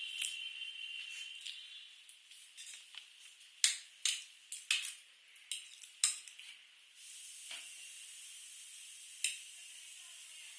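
Close-miked ASMR eating of spicy noodles and french fries: a run of sharp wet smacks and clicks, then a steady high hiss from about seven seconds in.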